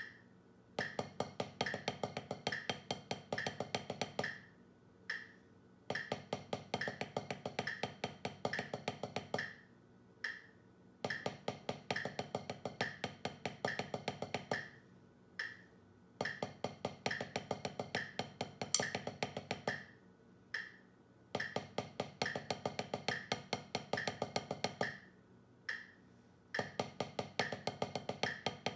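Wooden drumsticks playing fast, even strokes on a drum practice pad in phrases of about four seconds, separated by rests of about a second. A steady metronome click runs underneath and keeps going through the rests.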